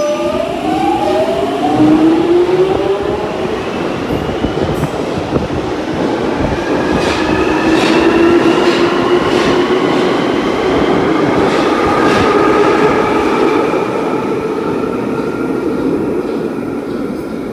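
London Underground 1996 Tube Stock train pulling away from the platform, its traction motors whining and rising in pitch as it accelerates. The wheels click several times on the rails about halfway through, and the sound fades slightly near the end.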